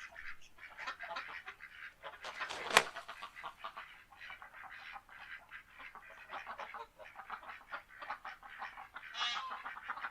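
Ducks quacking and chattering, many short calls overlapping in quick succession. One much louder quack comes almost three seconds in, and another loud burst of calls comes near the end.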